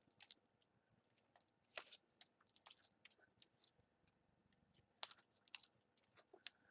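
Blue glitter slime being squeezed and stretched by hand, giving faint, irregular wet clicks and squelching pops.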